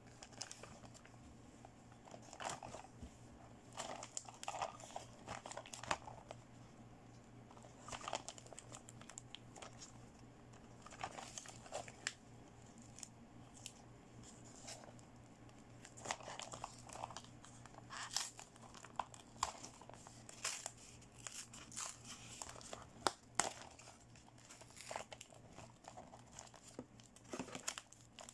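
Toy packaging being handled and opened: plastic and paper crinkling and tearing in irregular bursts, with small sharp clicks of plastic pieces.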